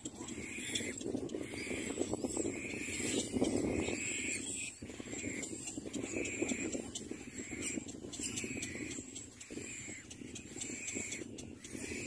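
Cormorant nestlings begging at the nest: a short, hoarse call repeated about one and a half times a second, with a steady thin high whine behind it.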